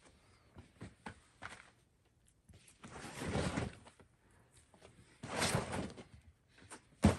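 Bouldering crash pads being shifted across the ground beneath the climber: two rough scraping drags, each about a second long, and a sharp thud near the end as a pad is dropped.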